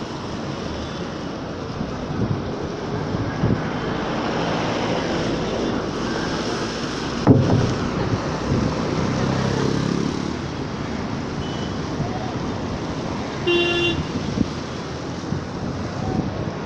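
Steady road traffic noise, with one sudden loud thump about halfway through and a short car horn toot a few seconds before the end.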